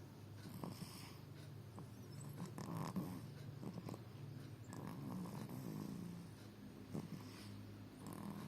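Five-month-old baby snoring in her sleep, a slow series of snoring breaths that swell and fade every couple of seconds.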